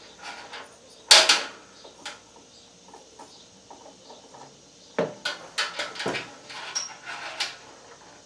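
Small metal chains and spring latches clinking and knocking against a stainless steel pot as an electric heating belt is hooked around it: a sharp clank about a second in, two more knocks around five and six seconds, and light clicks between.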